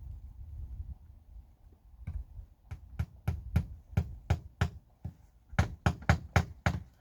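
Hammer driving nails into wood: two runs of quick, even strikes, about three a second, with a short pause between them.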